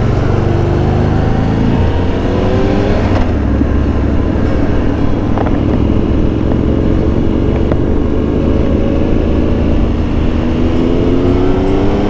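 Triumph Tiger Explorer 1200's three-cylinder engine accelerating under way, with the engine note rising. There is a brief break about two seconds in, like a gear change, and then a long slow rise. Strong wind noise on the microphone lies underneath.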